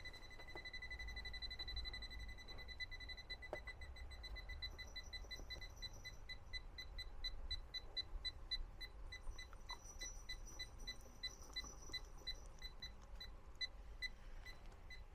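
Electronic refrigerant leak detector (sniffer) sounding a steady high tone that breaks into rapid beeps, which gradually slow to about two a second. The detector is settling back toward its baseline after being swamped by refrigerant gas from a leaking rear air-conditioning pipe joint.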